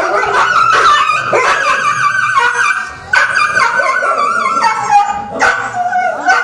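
Dogs trapped down a well whining and yelping in distress: a near-continuous high whine broken by sharper yelps, pausing briefly about three seconds in.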